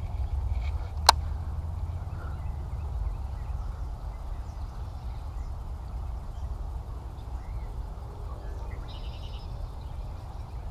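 Low, steady rumble on a chest-mounted action camera's microphone, with one sharp click about a second in and faint bird chirps in the background.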